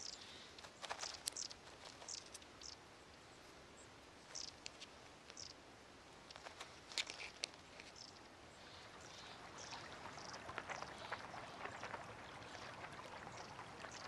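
Faint, scattered rustles and soft clicks in dry fallen leaves as a Eurasian jay forages and handles a nut. In the second half a stream's steady rush of water swells up.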